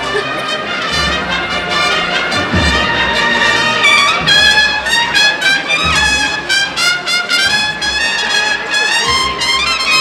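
Banda de cornetas y tambores playing a processional march: cornets carry the melody over rattling snare drums, with heavy low drum beats every few seconds.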